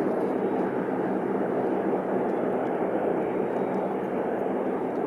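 Airliner engine noise: a steady, even rush with a faint hum under it.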